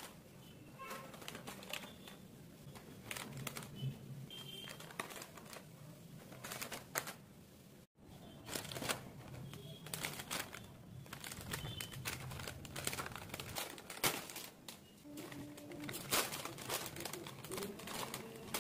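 Metallised plastic snack packets crinkling and crackling as they are handled and one is opened, in irregular sharp crackles. The sound cuts out briefly about eight seconds in.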